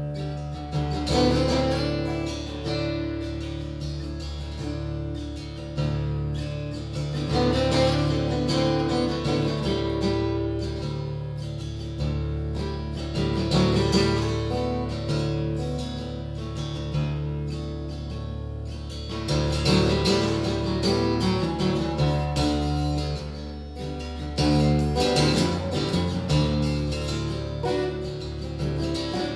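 Solo acoustic guitar played live, strummed and picked over a sustained low note. It eases off briefly about two-thirds of the way through, then the strumming comes back stronger.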